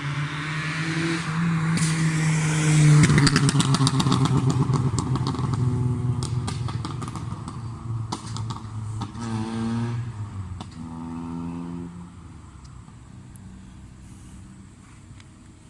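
Remapped Proton Waja engine revved up and let fall back, its exhaust popping and crackling on the overrun for several seconds as the revs drop, the pops set by a pop-and-bang ECU tune. Two short blips of the throttle follow, then the engine settles to a quieter idle.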